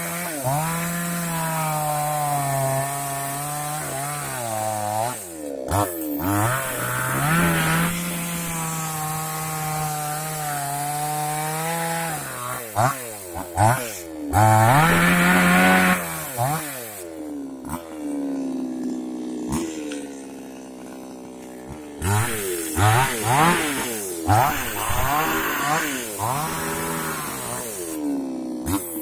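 New West two-stroke chainsaw cutting through a rubber tree trunk, its engine pitch repeatedly sagging under load in the cut and climbing again as the throttle is opened. It eases off for a few seconds past the middle, then revs hard again.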